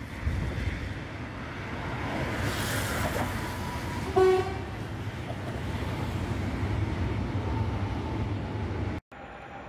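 Electric multiple-unit passenger train rolling across a steel truss railway bridge, a steady rumble of wheels on rail. About four seconds in, a short, loud toot of a train horn sounds once; the sound cuts off suddenly near the end.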